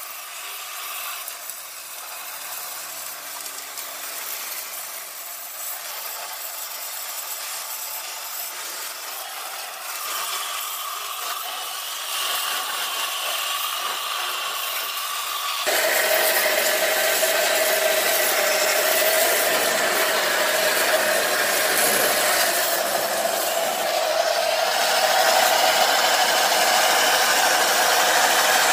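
Wet sandblasting gun run off a car-wash pressure washer, spraying sand and water against aluminium engine parts inside a steel blast box: a steady hiss and spatter that gets clearly louder about halfway through.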